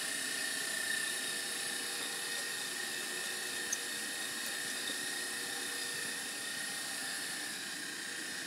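Electric stand mixer motor running steadily with a high whine, whipping egg whites into meringue.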